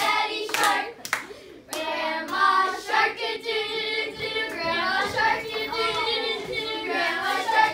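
A group of children singing together in a classroom, their voices overlapping, with sharp hand claps scattered through; the singing dips briefly about a second in.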